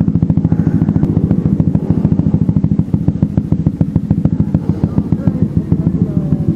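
Motorcycle engine running at idle with a rapid, even pulsing beat.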